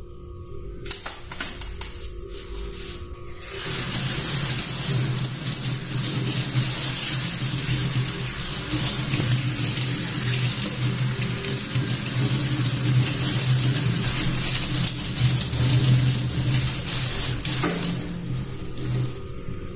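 Brief toothbrush scrubbing with light knocks on a plastic keyboard case, then a kitchen faucet runs, water splashing over the keyboard case and into the steel sink. The water runs steadily for about fourteen seconds and is shut off near the end.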